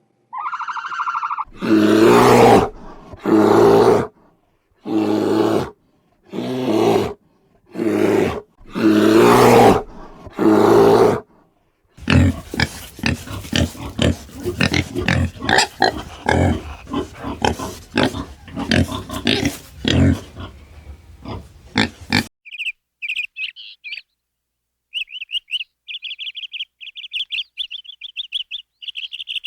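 Farm animal calls in three parts. First, a series of about seven loud, drawn-out calls. Then rapid, dense grunting for about ten seconds. Last, high, quick bird chirping.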